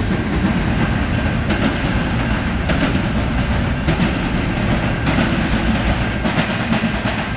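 Double-stack container train's freight cars rolling past on steel wheels, a steady rumble with sharp clacks over the rail joints roughly every second.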